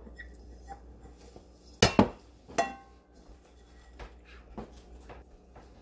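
A ceramic ramekin knocking and clinking against a plate and countertop: two sharp knocks about two seconds in, a ringing clink just after, then a couple of faint taps.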